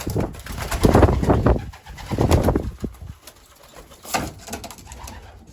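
Racing pigeons cooing inside the loft, with several loud close-by rustling bursts that come and go, the longest about a second in.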